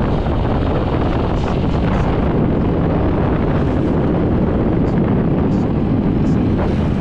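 Steady wind noise buffeting the microphone while riding a moving scooter, with the ride's rumble underneath.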